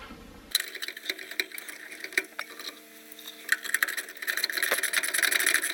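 A screw being driven by hand with a small tool into the furnace inducer motor's sheet-metal mount, where the ground wire attaches: quick metal clicks and scraping that grow louder over the last couple of seconds.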